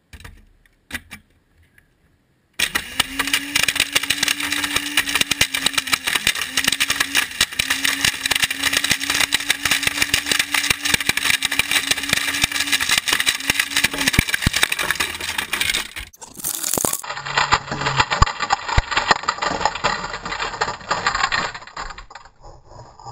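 A few light clicks, then a countertop blender runs with a small plastic RC toy truck inside: the motor hums steadily under a loud, dense clatter and rattle of plastic being smashed against the blades and jar. It cuts out about 16 seconds in, runs again for about five seconds, and stops.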